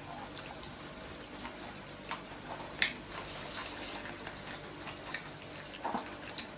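A person chewing a mouthful of sea bass sushi roll close to the microphone: scattered soft, wet mouth clicks, with one sharper click about three seconds in.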